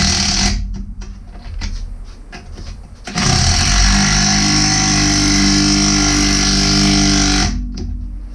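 Impact gun snugging the sway bar bushing bracket bolts: a short burst at the start, then a steady run of about four seconds from about three seconds in.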